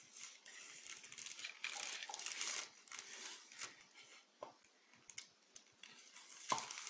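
A spoon scooping dry plaster powder and tipping it into a plastic cup: rustling and scraping, loudest in the first half, then a few light clicks, the sharpest near the end.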